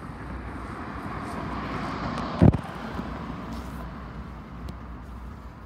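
BNSF coal train with an SD70MAC locomotive rolling past, a steady low rumble of wheels and hopper cars. A passing road vehicle swells up over it, and a brief, very loud low thump comes about two and a half seconds in.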